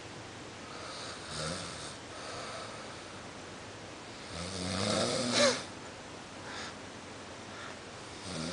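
A man snoring in his sleep: three snores about three and a half seconds apart, the middle one the loudest.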